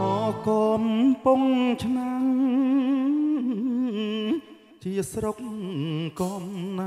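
A singer holding slow, ornamented notes with strong vibrato over a thin live-band backing with no bass, in a Khmer song. The voice breaks off briefly about four and a half seconds in, then comes back.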